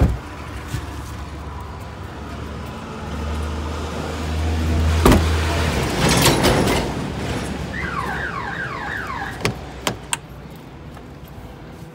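A car's tailgate slammed shut with one sharp knock about five seconds in, over a low engine rumble, followed by a few sharp clicks of car door handling near the end.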